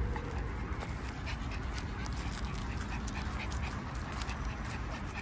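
A small leashed dog trotting and sniffing through fallen leaves: light rustling with faint irregular ticks, over a steady low rumble on the microphone.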